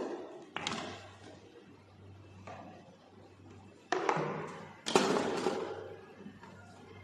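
Four sharp knocks or clunks. One is about half a second in and two larger ones come about four and five seconds in, each fading away over about a second.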